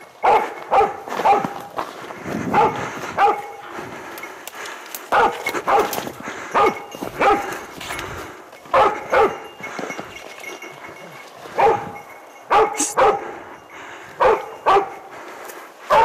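A hunting dog barking on a wild boar's trail, with barks coming in short runs of two to four, over and over.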